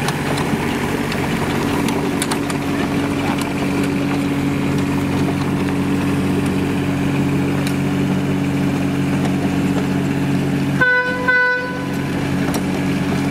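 Miniature railway locomotive's engine running steadily, with two short horn toots about eleven seconds in.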